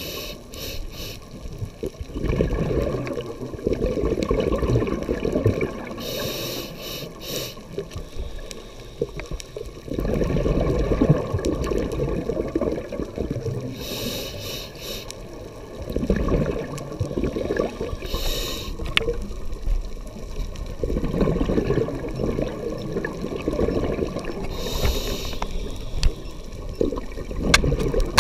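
Scuba regulator breathing underwater: four breaths, each a short hissing inhale followed by a long, low rush of exhaled bubbles, recorded through the camera's waterproof housing.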